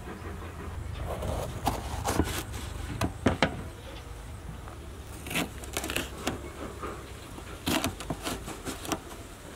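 Kitchen knife cutting a yellow bell pepper on a plastic cutting board: a dozen or so sharp, crisp cuts and knocks in irregular clusters, over a low steady rumble.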